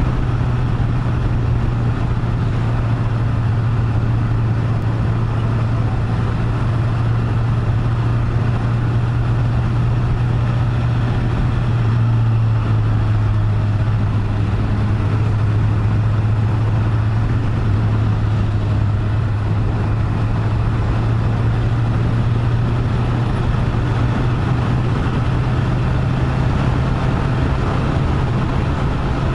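Honda CBR1000RR (SC77) inline-four engine running at a steady city cruising speed, with wind and road noise on a helmet-mounted microphone. The engine note shifts slightly about twelve seconds in.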